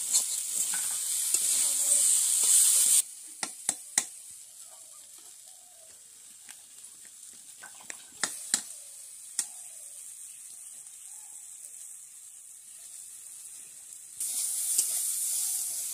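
Mixed vegetables sizzling as they fry in a hot metal kadai, stirred with a metal spatula that clinks against the pan. The sizzling drops away abruptly about three seconds in, leaving a quieter stretch with a few sharp clinks, and comes back loud near the end.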